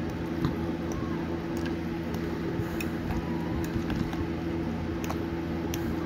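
A thick cream cheese, spinach and artichoke mixture being stirred in a glass bowl: soft squishing, with scattered light clicks of the utensil against the glass. A steady low hum runs underneath.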